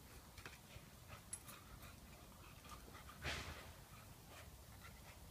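Faint sounds of an Airedale terrier puppy and a second puppy at play, with one brief louder noise about three seconds in.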